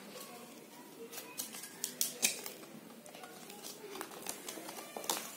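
Cardstock and paper of a handmade explosion box being handled: scattered short clicks and rustles as a folded card is lifted and moved, the sharpest about two seconds in.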